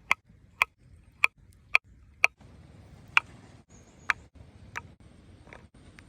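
A series of sharp taps, about two a second for the first few, then spacing out and growing fainter in the second half.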